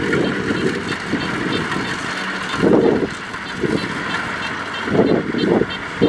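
Kubota DC70 combine harvester running while it cuts rice: a steady diesel engine and threshing drone with a faint regular ticking. Uneven low surges rise and fall, the strongest about three and five seconds in.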